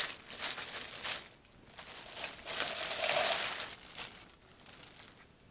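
Packaging rustling and crinkling as a cone of cotton yarn is pulled out of it, in two spells, the second one louder, from about two and a half seconds in.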